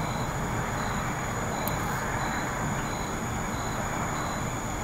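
A single faint knock on a wooden or plaster surface, over a steady hiss with crickets chirping about once every two-thirds of a second.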